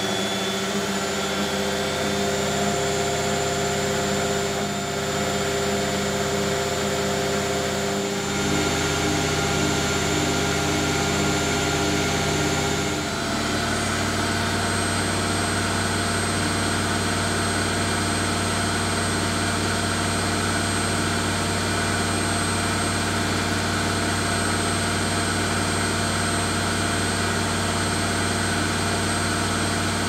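Zanussi Jet System ZJ1217 washing machine on a spin-only cycle set to 1200 rpm, its motor and drum running with a steady hum and whine. The pitch shifts about 8 seconds in, and the sound changes abruptly about 13 seconds in, then holds steady.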